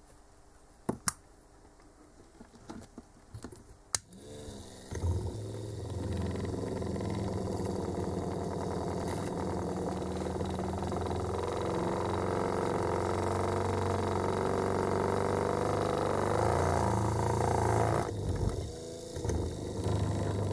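Small drill motor in a drill stand starting about four seconds in and running steadily for roughly thirteen seconds, spinning a Delphi common-rail injector control valve against its seat with lapping paste, metal rubbing on metal, to polish the sealing faces to a mirror finish and stop the valve leaking into the fuel return. It stops a couple of seconds before the end; two sharp clicks come before it starts.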